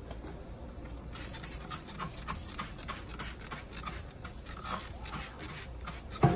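Trigger spray bottle of citrus grill cleaner squirted again and again into a grill's cookbox, a quick string of short spritzes about three a second. A sharp knock near the end.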